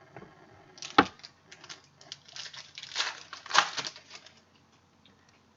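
A trading-card pack's wrapper being crinkled and torn open, a run of irregular crackles after one sharp knock about a second in.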